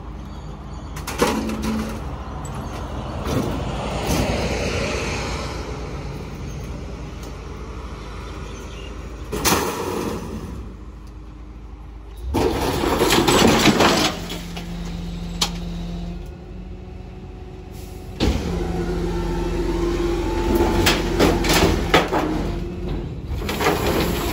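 Rear-loader garbage truck running at the kerb, its hydraulic compactor working: a steady whine from the hydraulics under the diesel engine, with several metal bangs and clanks from the loading hopper and packer.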